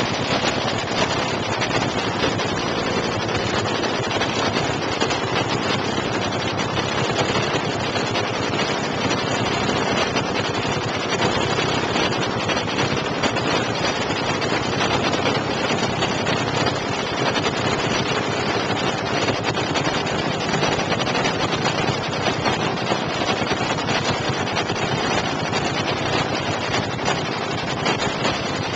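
Supercharged nitromethane-burning drag-racing engine of an AA/FA fuel altered, running at a steady idle through open individual exhaust stacks; loud and unbroken throughout.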